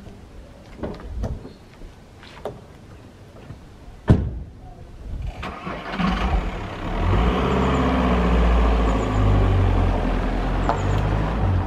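A few footsteps, then a car door shuts with a loud thud about four seconds in. A second or so later the estate car's engine starts and runs steadily, louder as the car pulls away.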